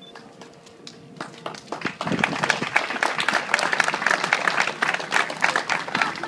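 Audience applauding: a few scattered claps about a second in, building quickly into steady clapping that carries on to the end.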